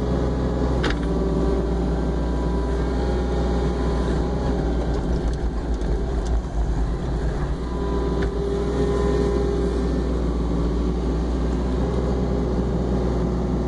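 Mini excavator's diesel engine running under load as the upper structure swings and the boom and loader bucket move, with whining tones that swell and fade as the hydraulics work. A short knock comes about a second in and another about eight seconds in.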